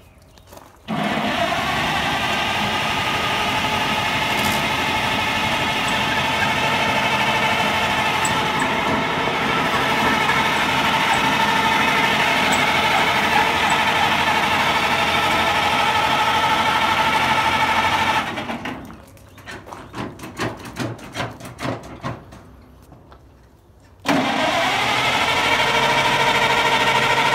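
1932 Chevrolet truck's inline-six engine being cranked over by its starter: a long steady spell of cranking starts about a second in and stops after some seventeen seconds. A few seconds of uneven knocks follow, then the cranking starts again, rising slightly in pitch as it gets going. The engine has not yet caught.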